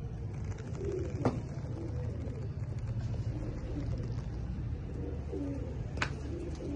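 A flock of Saharanpuri high-flyer pigeons cooing in low, scattered murmurs over a steady low hum. Two sharp clicks sound, one about a second in and one near the end.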